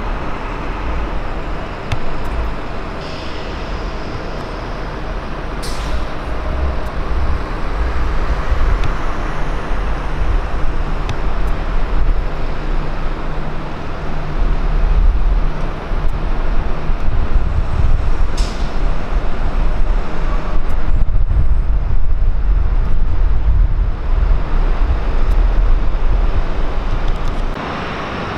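Jet airliner engines making a loud, deep, fluctuating rumble, with two sharp clicks along the way; the noise drops off abruptly near the end.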